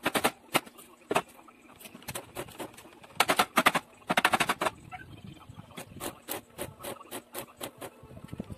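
Metal clanks and rattling clicks as steel tools are picked up and set down on a sheet-steel door panel, with quick clattering runs about three and four seconds in.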